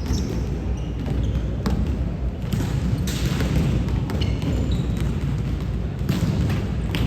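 A basketball bouncing on the court, a few irregular sharp thuds over a steady low rumble of gym noise.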